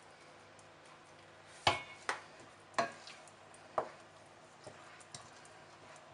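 Wooden spoon stirring thick tomato sauce in a stainless steel pot. It knocks sharply against the pot four times from about a second and a half in, then gives a couple of lighter taps.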